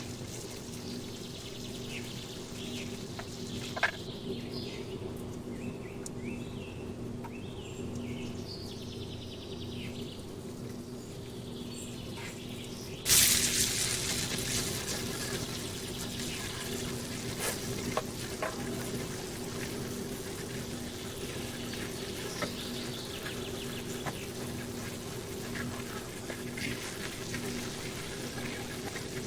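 Food going into a hot pan: a sudden loud sizzle about thirteen seconds in that settles into steady frying. Before it, scattered faint bird chirps and small clicks.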